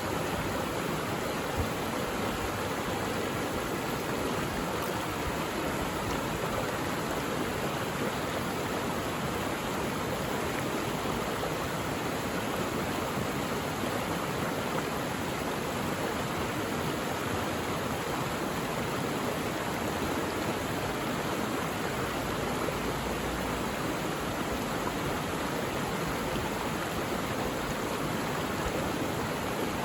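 Mountain valley stream, water rushing steadily over rocks.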